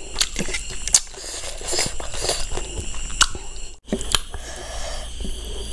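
Close-miked eating sounds: wet chewing and mouth clicks, with sticky squelches of rice and pork rib curry being mixed by hand, in many short irregular clicks.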